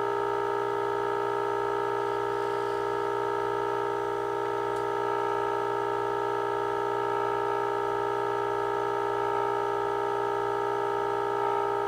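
1948 Emerson model 543 AA5 tube radio's speaker sounding a steady, buzzy audio tone with a low hum under it. This is the signal generator's modulation tone coming through the set while the last IF transformer trimmer is peaked during alignment.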